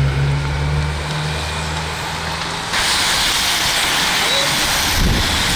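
A vehicle engine hums steadily and low. About two and a half seconds in, it gives way abruptly to a loud rushing hiss of tyres and air as a bunch of racing bicycles sweeps past close by.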